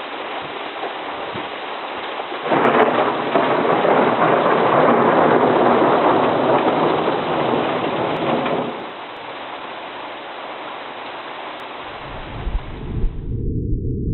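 Thunderstorm: heavy rain pouring steadily, with a sudden much louder stretch of thunder about two and a half seconds in that lasts some six seconds. A deep low rumble of thunder comes in near the end.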